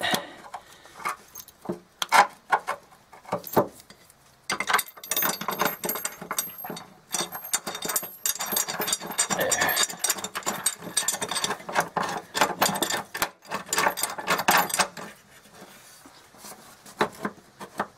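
Rapid, irregular small metal clicks and rattles of bolt hardware being worked by hand on a steel running-board mounting bracket. The clicking is densest for about ten seconds in the middle and thins out near the end.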